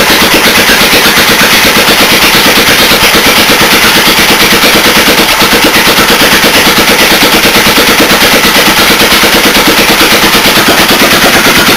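Honda GV400 single-cylinder vertical-shaft petrol engine running loud and steady with a rapid, even firing beat, on its test run after the stuck exhaust valve was relapped.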